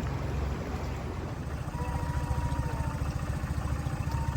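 Boat motor running steadily at low cruising speed, with a fast, even flutter. A faint thin tone sounds briefly about two seconds in.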